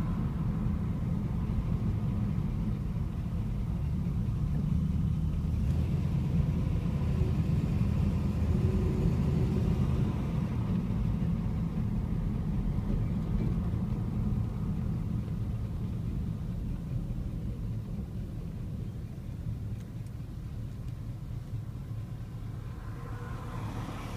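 Low, steady engine rumble and road noise of a classic American V8-era car heard from on board while cruising, growing quieter over the second half as it eases off.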